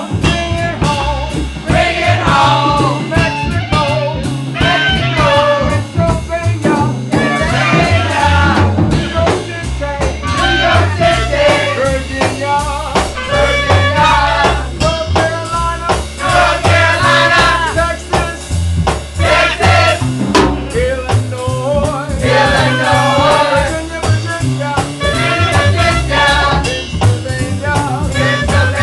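Live band music: an upright double bass plays a moving bass line under singing and percussion.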